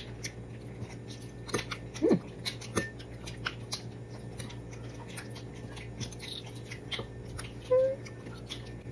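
A person eating balut (boiled fertilized duck egg): chewing, with many small mouth clicks and smacks, and a couple of short hums, one about two seconds in and one near the end.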